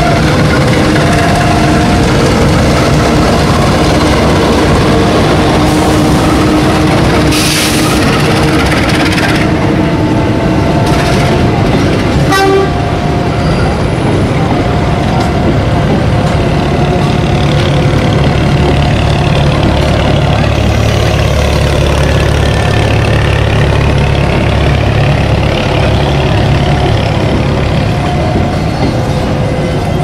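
A diesel-hauled passenger train passes a level crossing. The locomotive goes by first, then the carriages roll over the rails with a deep, steady rumble that gets heavier partway through. Over it, the crossing's warning signal repeats a steady electronic tone.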